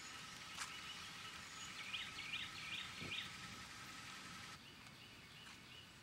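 Faint outdoor background with birds chirping, a quick series of short chirps about two to three seconds in.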